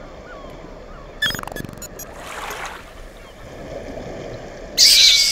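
Small waves washing onto a sandy beach, a steady wash of surf. About a second in there is a short falling tone with a quick rattle of clicks, and near the end a louder burst of hissing noise.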